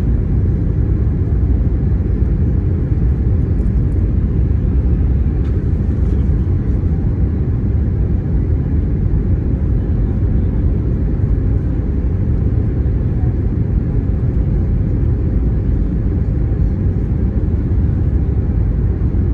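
Steady low rumble of engines and rushing air heard inside an Airbus A321neo cabin on final approach, flaps extended.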